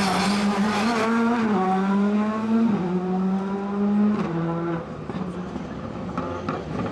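Rally car engine under hard acceleration, its pitch dropping in steps three times as it shifts up through the gears, then quieter about five seconds in as the car moves away.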